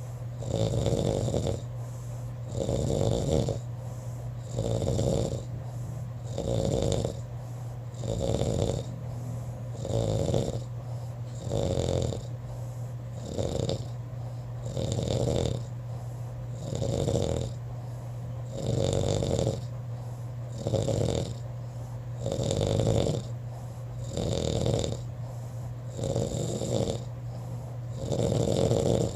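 A person snoring steadily in sleep, with a snore about every two seconds in an even rhythm. A steady low hum runs underneath.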